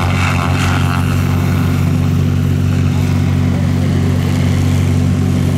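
SAB Goblin electric RC helicopter in flight: its main rotor and motor make a steady, even buzz at a constant head speed.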